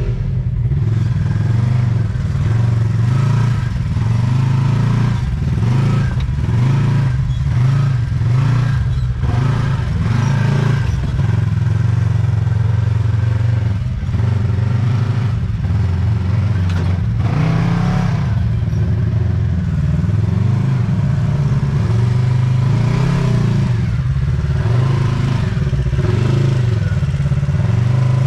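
Side-by-side UTV engine running under changing throttle while driving over rough ground, its pitch rising and falling, with occasional knocks and rattles from the machine.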